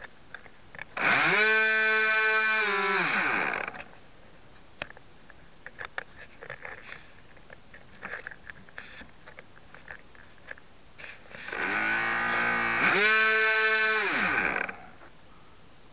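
A small RC airplane's electric motor and propeller spinning up, running at a steady pitched whine for about three seconds, then winding down. The same run-up happens again about ten seconds later.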